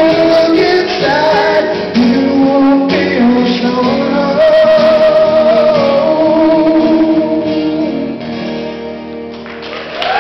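Two acoustic guitars strumming under a male voice singing long held notes, quieting near the end as the song winds down.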